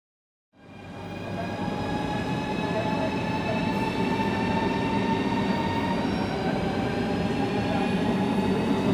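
EP2K passenger electric locomotive with its train approaching: a steady low rumble with a whine of several high tones above it, slowly getting louder. It fades in about half a second in.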